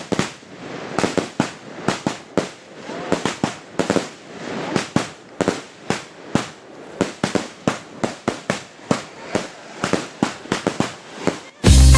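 Fireworks going off: a rapid, irregular string of sharp bangs, a few each second, with crackling between them. Loud dance music cuts in abruptly near the end.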